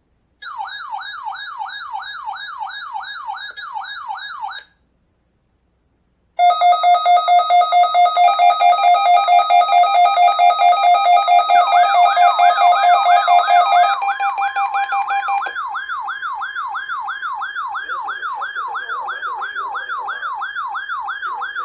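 Several NOAA weather radio receivers sounding their alert alarms, set off by the National Weather Service's required weekly test. First a single warbling alarm runs for about four seconds. After a short pause several radios go off together with rapid beeping tones and warbles; two of them cut out about two-thirds of the way through, leaving one warbling alarm.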